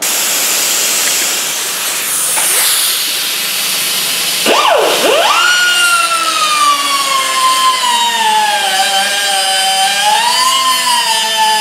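Grinder with a cutoff wheel cutting through the old wheel bearing's steel race left on the hub. It starts as a loud grinding hiss. About four and a half seconds in, a high whine dips sharply and comes back up, then sinks slowly in pitch as the wheel bites into the metal.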